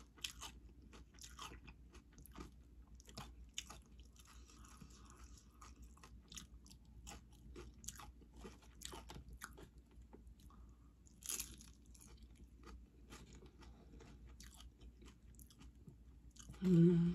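A person chewing crunchy tortilla-chip nachos, with many small crunches and a louder crunch about eleven seconds in. A short hum of the voice near the end.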